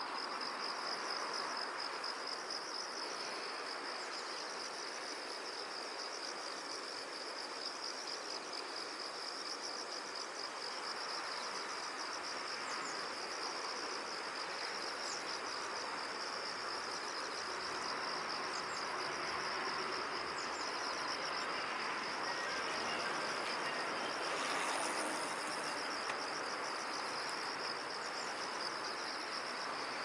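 A chorus of insects trilling, high-pitched and steady without a break, over a low even hiss of outdoor background noise.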